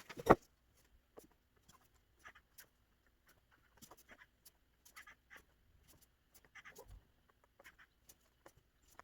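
Hand embroidery: a needle pushed through fabric and the thread drawn after it, giving scattered small ticks and short rasps, with one sharp click just after the start.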